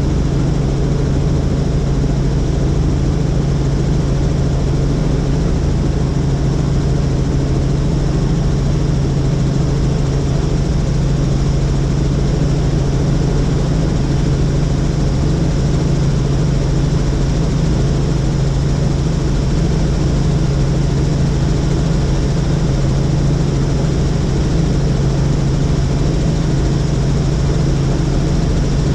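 Helicopter in steady flight: a constant, loud drone of rotor and engine with a deep, unchanging hum.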